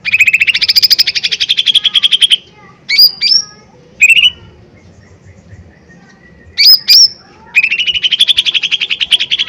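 Cucak ijo mini (leafbird) singing loudly. It gives a fast rattling trill of rapid rising notes for about two seconds, then a few short sharp whistled notes, then a second long fast trill near the end.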